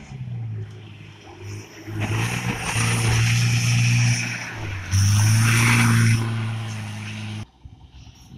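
Mitsubishi Pajero's engine running hard as the SUV climbs a sandy slope and passes close by, at a fairly steady pitch, loudest in the middle. The sound cuts off abruptly about a second before the end.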